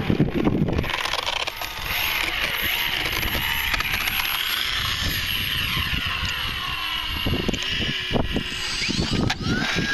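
Electric motors and propellers of foam RC planes whining, the pitch rising and falling with the throttle, with a quick climb to a higher, steady whine near the end.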